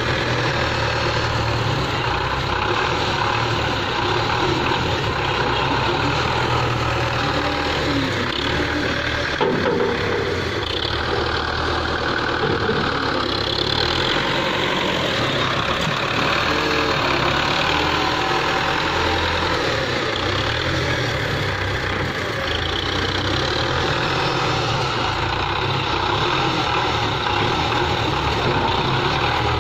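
Belarus 510 tractor's diesel engine running steadily while it works a front-end loader, scooping and lifting dung. A single sharp knock about nine and a half seconds in.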